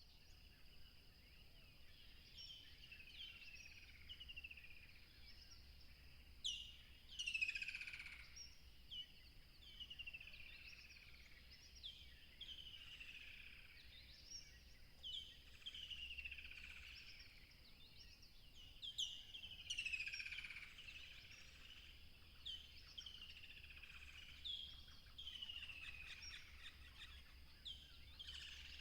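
Birds chirping in a busy chorus: many short, falling whistled notes, with louder bursts of calls about seven and nineteen seconds in, over a faint steady high hiss.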